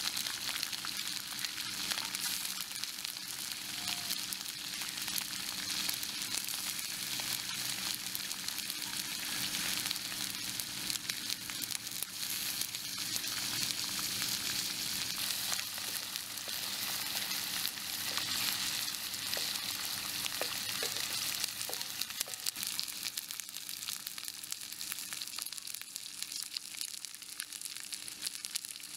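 Small whole fish frying in oil in a pan over a wood fire: a steady, dense sizzle with fine crackling.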